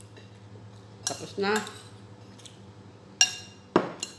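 A spoon clinking against a bowl while eating, three sharp taps, one about a second in and two close together near the end.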